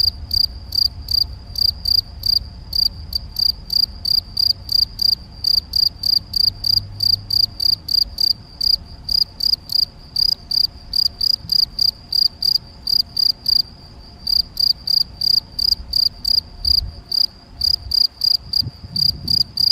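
Male European field cricket (Gryllus campestris) stridulating its calling song: a loud, regular series of shrill chirps, about three a second.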